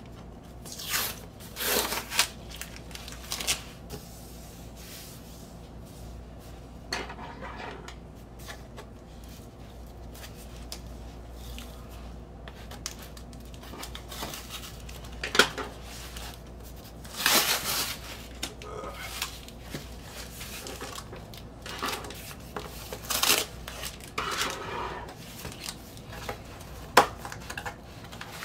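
Clear packing tape being peeled and ripped off a cardboard record mailer and cut with scissors: irregular scrapes, rips and cardboard rustles, some loud and some short, over a faint low hum.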